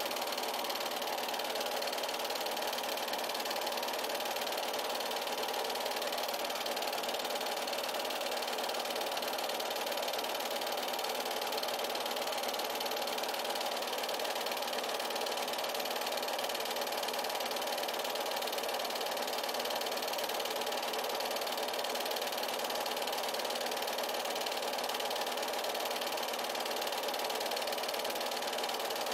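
8mm film projector running steadily, its mechanism making a constant, unchanging machine noise.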